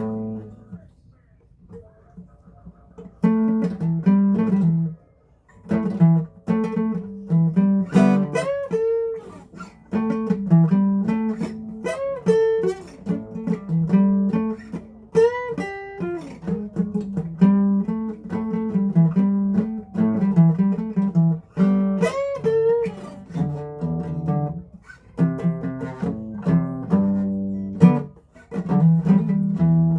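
Acoustic guitar being strummed, chord after chord, with a short pause about a second in and a few notes bent in pitch.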